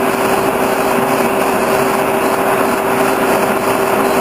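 Horizontal boring mill running under power, its spindle drive giving a steady mechanical drone with a constant mid-pitched whine.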